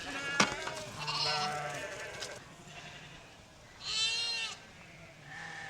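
Sheep bleating: one longer wavering bleat about a second in, then a shorter, higher bleat near the end. A sharp click comes just before the first bleat.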